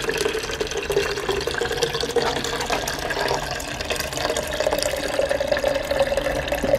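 Liquid compost drained from a soldier fly larvae compost bin running out of the bin's spigot in a steady stream into an old peanut butter jar. A hollow tone in the splashing rises slowly as the jar fills.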